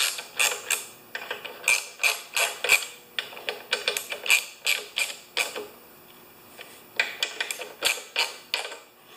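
Small hand ratchet with a 10 mm socket clicking in short runs as it turns a bolt on a lawnmower engine's carburetor and air-filter housing, with a brief pause a little past halfway.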